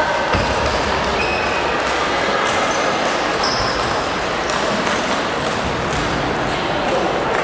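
Table tennis rally: a celluloid ball clicking back and forth off bats and table, over the steady hubbub of a large hall where other matches are being played.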